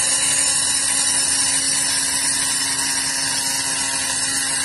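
Handheld rotary tool running at a steady speed, its bit grinding the edge of a metal mounting bracket to trim it.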